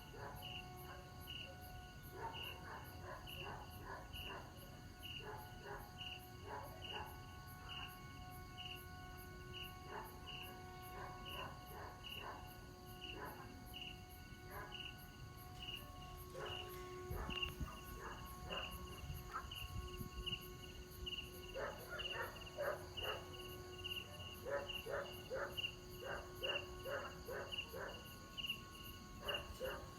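Several steady held tones from a Vietnamese kite flute (sáo diều) of the 'train-horn' kind, sounding faintly at once at different pitches, with one tone dropping out and coming back. Insects chirp under it, a regular chirp about twice a second, with bursts of rapid clicking trills that come and go.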